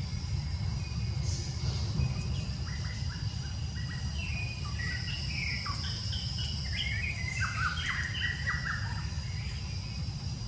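A bird singing a quick run of short notes that step up and down in pitch, over a steady high insect drone and a low rumble of background noise.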